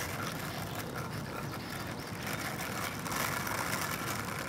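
Skateboard wheels rolling on asphalt as a French bulldog pushes the board along, a steady rolling noise that grows louder about two seconds in.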